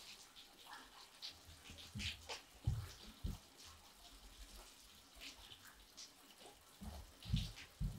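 Irregular light clicks and taps, with a few dull thumps, the loudest about three seconds in and again near the end.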